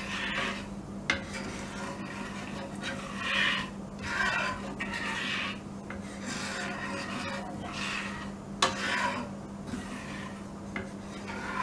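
Wooden spatula stirring fenugreek seeds in oil around a non-stick pan, scraping the pan bottom in repeated strokes about once a second. Twice the spatula knocks sharply against the pan.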